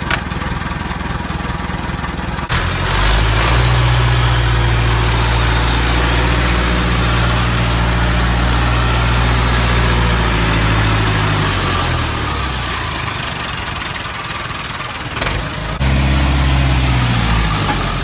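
Landini 8560 F tractor's diesel engine running: a couple of seconds in it turns abruptly much louder, at high revs, and holds steady, then the revs fall away. A sharp click near the end, then the engine is loud again briefly and eases off.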